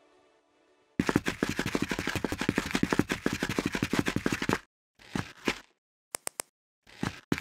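Small plastic Lego pieces clicking: about a second in, a fast, dense rattle of clicks starts suddenly and lasts about three and a half seconds, then gives way to separate sharp clicks in quick groups of two or three.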